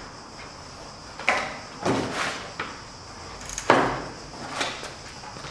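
Wooden shipping-crate pallet knocking and thudding under a scooter being lifted and rolled on it: about five dull knocks, the loudest about three and a half seconds in.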